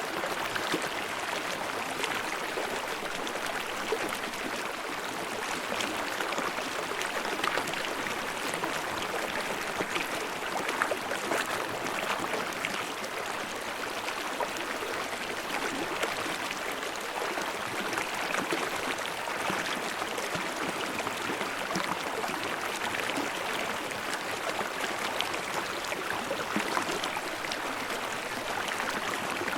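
Stream water running and splashing over rocks in a steady babbling rush, with small splashes and gurgles.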